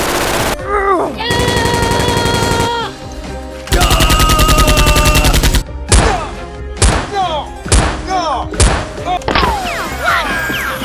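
Movie-style gunfire sound effects: three bursts of rapid automatic fire, then four single shots about a second apart, then a string of short sounds that fall in pitch.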